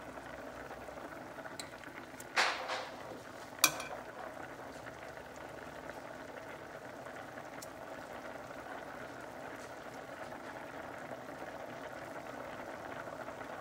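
Chicken broth at a rolling boil in a wide stainless steel pot, bubbling steadily. A short clatter comes about two and a half seconds in, and a sharp clink follows just over a second later.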